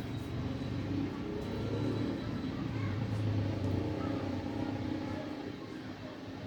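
Steady low rumble of a motor vehicle engine running in the background, swelling and easing, with faint voices.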